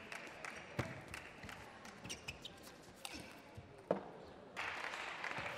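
Table tennis rally: the ball clicking off the bats and bouncing on the table in quick, irregular knocks. Applause starts about four and a half seconds in as the point ends.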